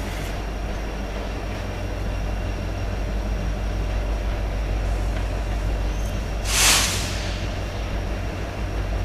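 Diesel-hauled freight train running steadily past, with a brief loud hiss about six and a half seconds in.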